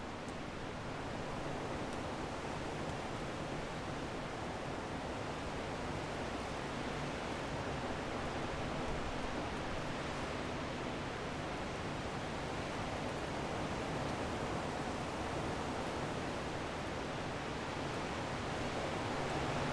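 Strong wind blowing in a steady rush, building slightly in the first couple of seconds.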